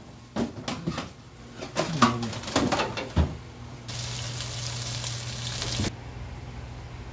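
A few kitchen knocks and clatters, then, about four seconds in, pork belly and kimchi sizzling in a frying pan. The sizzle is a steady hiss that lasts about two seconds and stops abruptly.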